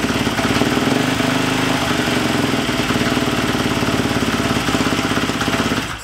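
Freshly rebuilt Husqvarna FE 350 single-cylinder four-stroke dirt bike engine, bored out to 366, idling steadily with its idle raised slightly. It is shut off at the very end and dies away.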